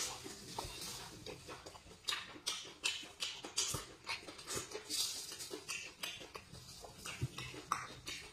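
Close-miked eating sounds: wet sucking, slurping and lip smacks as marrow is eaten out of a split spicy beef marrow bone, in many short separate bursts.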